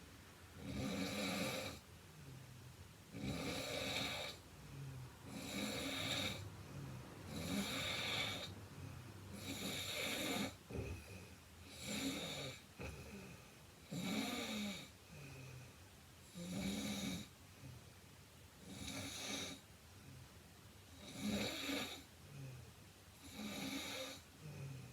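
A heavyset woman snoring in her sleep with a steady rhythm, one snore about every two seconds.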